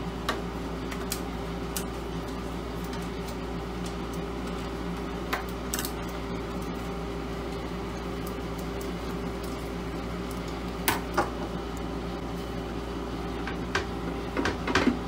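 Screwdriver working on the screws of a laser machine's sheet-metal cabinet: scattered small metallic clicks and clinks over a steady hum, with a cluster of knocks near the end as the loosened metal cover is handled and lifted.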